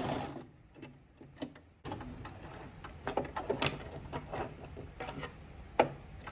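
A sewing machine's stitching stops just after the start, followed by scattered clicks and knocks of fabric and the machine being handled, the loudest near the end.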